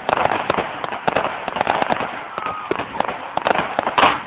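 Fireworks going off in rapid succession: dense crackling and popping from bursting shells, with a louder burst near the end and a faint whistle or two among them.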